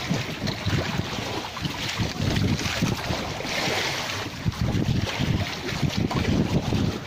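Wind buffeting the microphone in gusts, over sea water washing against a small outrigger boat, with a louder swash of water a little past halfway.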